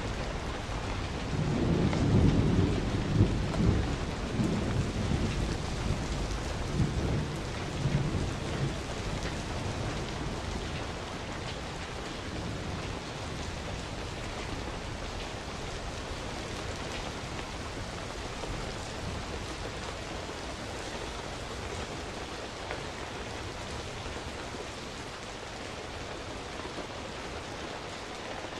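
Steady rain, with thunder rumbling from about a second in until around eight seconds in, then rain alone.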